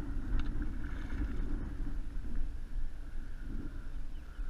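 Steady wind noise on the microphone with water lapping and splashing around a kayak as a hooked striped bass is reeled alongside, the fish splashing at the surface near the end.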